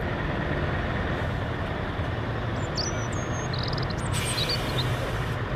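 Scania semi-trailer truck driving past, its diesel engine running with a steady low hum over road noise.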